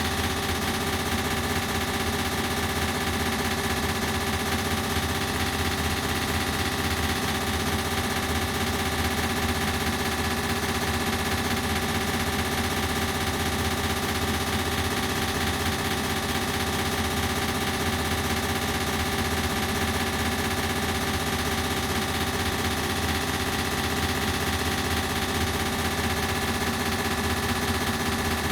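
Ceiling fan running steadily, its sound run through an added echo effect into an even hum of many steady tones with a fast flutter.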